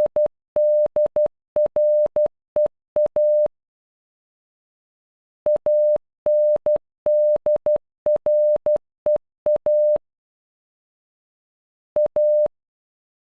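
Morse code sent as a steady, mid-pitched electronic beep in short dots and long dashes, spelling ANDREA (.- -. -.. .-. . .-). The tail of one playing ends about three seconds in. After a pause the whole word plays once in full, and a lone A (.-) sounds near the end.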